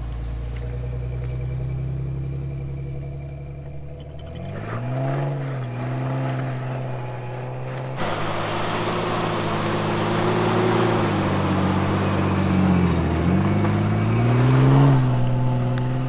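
Recovery vehicle's engine pulling a stuck car out of snow on a tow rope, revving up about five seconds in, then holding under load with a dip and a rise near the end. A steady rushing noise joins about halfway.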